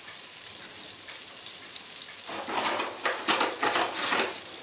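Liquid plant-based margarine sizzling and bubbling in a pan on the hob's highest setting as it heats to frying temperature. It crackles louder from about two seconds in.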